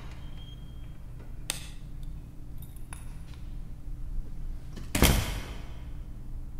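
A door being opened and shut: a sharp click about one and a half seconds in, then the door closes with a loud knock about five seconds in, over a steady low hum.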